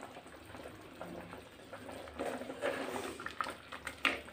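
Thick chicken curry gravy sloshing and bubbling as a wooden spoon stirs it in a metal pot: soft, irregular wet sounds, busier from about halfway in, with a sharper tap near the end.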